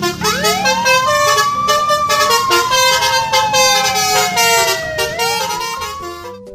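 A siren wailing: it rises quickly, falls slowly for about four seconds, then starts rising again about five seconds in. It plays over a busy backing of short pitched notes with a quick beat, and all of it cuts off suddenly at the end.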